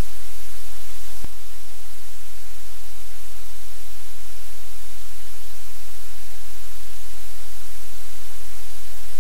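Steady, loud static hiss, with a single sharp click about a second in, after which it is slightly quieter.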